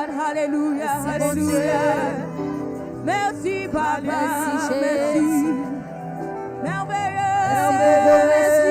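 Gospel worship singing with vibrato over sustained instrumental accompaniment.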